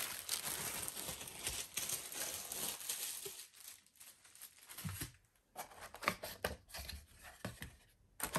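Plastic packaging crinkling as it is handled, a dense rustle for the first few seconds. Then come scattered rustles and light knocks on the cardboard box, and a louder crinkle right at the end.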